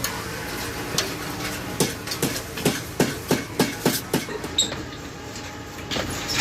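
Hammer striking sheet metal while a kettle is shaped by hand: a single blow about a second in, then a quick run of about eight blows at roughly three a second, and another near the end, over a steady workshop rumble.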